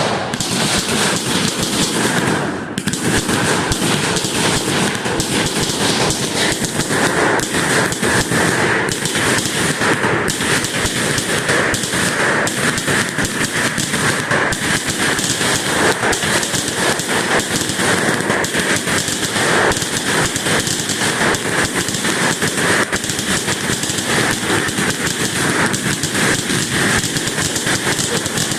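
Fireworks going off in a dense, continuous barrage of rapid pops and crackles.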